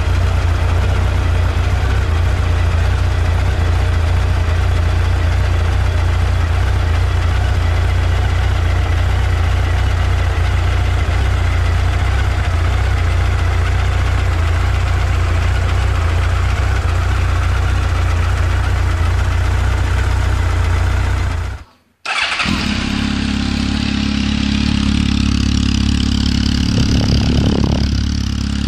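Honda CB1300's inline-four engine idling steadily. After a short break, the same kind of idle comes through a Hurric aftermarket silencer, with a short blip of the throttle near the end.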